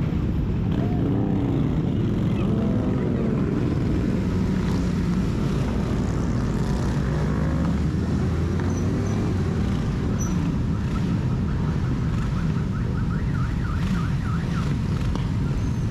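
Motorcycle engines running, their revs rising and falling over a steady din. A fast repeating siren-like warble comes in during the second half.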